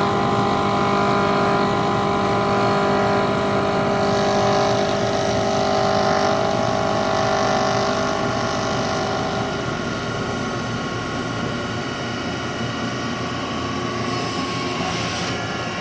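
Okuma Millac vertical machining centre spiral-milling heat-treated 4340 steel with a 3/8-inch carbide ball end mill on a semi-finishing pass, cutting dry without coolant. It makes a steady whine of several held tones from the spindle and cutter, which shift a couple of times, with a brief hiss near the end.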